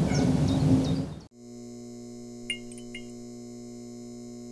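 Outdoor background noise with a few bird chirps fades out, then gives way to a steady electrical hum like a buzzing neon sign, with a couple of brief crackles as it flickers.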